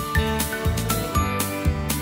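Soundtrack music with a steady beat of about two hits a second under a melody of single notes.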